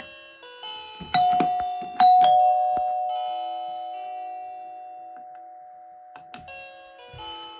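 Several doorbell chimes ringing together. Struck tones at different pitches sound about a second in and twice around two seconds in, then one long tone rings on and slowly fades, with a couple of sharp clicks near the end.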